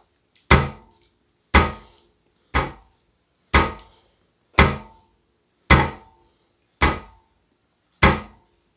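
Rhythmic heavy thumps, about one a second, eight in all, each with a short ringing fade.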